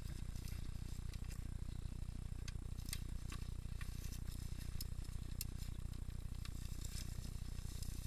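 Mountain bike riding over a rough forest trail: a steady low rumble with irregular clicks and rattles from the bike as it goes over rocks and roots.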